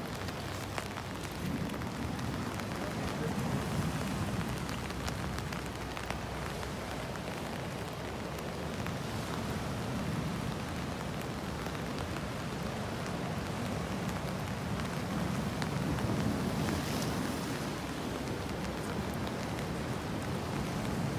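Sea waves washing and breaking against a rocky breakwater, with wind gusting on the microphone: a steady rushing noise with low swells every few seconds.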